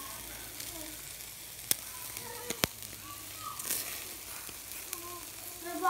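Marinated chicken sizzling on a wire grill over hot charcoal, a steady hiss, with two sharp pops a second apart about two seconds in.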